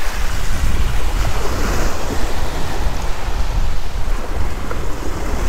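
Small waves lapping and washing up on a sandy shore, with wind blowing across the microphone and a steady low rumble under it.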